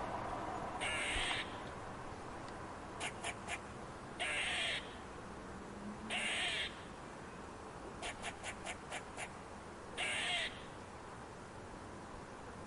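A bird giving harsh, rasping calls, each about half a second long, repeated every few seconds, with two quick runs of short clicks between calls.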